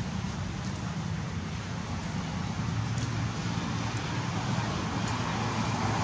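Steady outdoor background noise: a low rumble with hiss, growing a little louder near the end.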